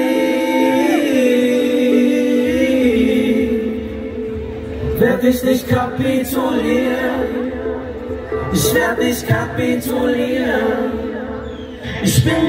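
Live pop band playing: long held notes, with bass and drums coming in about two seconds in.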